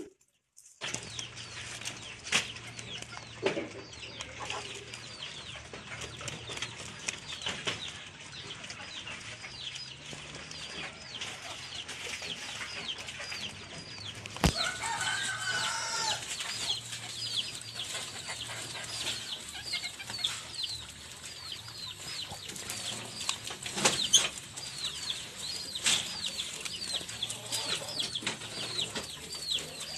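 Rabbits chewing and tugging at banana leaves, with leaf rustling and small clicks, over a constant chatter of short high bird chirps, several a second, which grow busier about halfway through. A single sharp knock comes near the middle.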